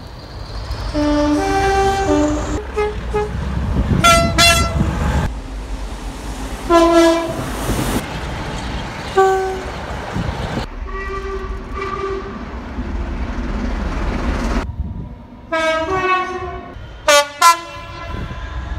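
British trains sounding their two-tone horns: a string of short blasts, several of them paired high and low notes, over the low rumble of the trains. Several different trains are heard one after another.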